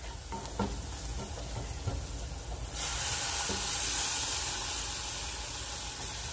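Wooden spoon stirring a bacon-and-onion flour roux in a saucepan, with light scrapes and taps. About three seconds in, stock is poured into the hot roux and sets off a loud sizzle that carries on, easing slightly, as the stirring goes on.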